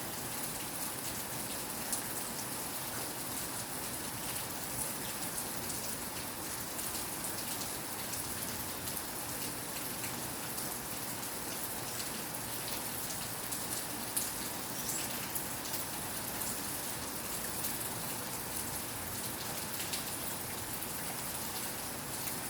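Steady rain falling on a surface, an even hiss with scattered sharper drop ticks.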